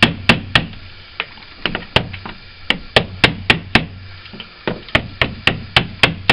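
Repeated sharp hammer blows on a tool hacking old putty out of a wooden window frame: about seventeen strikes in quick runs with short pauses. The putty is set rock-hard and grips the timber like cement.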